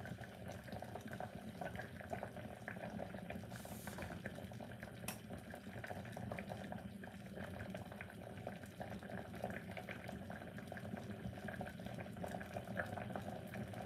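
Vegetable soup simmering in a lidded cast-aluminium Dutch pot, a faint, steady bubbling with small ticks.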